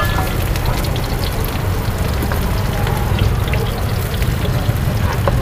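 Hot cooking oil sizzling steadily over a continuous low rumble, with faint light clicks of utensils.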